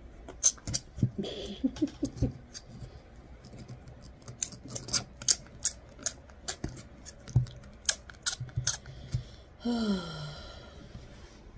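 Newborn puppy sucking and mouthing on fingers, making irregular wet smacking clicks. Near the end there is a short vocal sound that falls in pitch.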